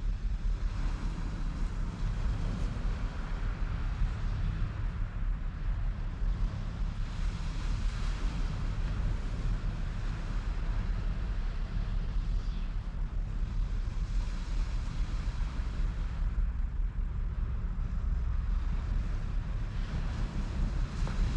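Wind buffeting the microphone with a steady low rumble, over the wash of waves breaking on the shore, which swells a little now and then.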